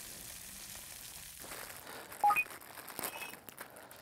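Steady sizzling from a chicken roasting in a foil-wrapped box oven over a fire, which stops abruptly about a second and a half in. About two seconds in come two short, high electronic blips, the loudest sound here, followed by faint rustling and clicks.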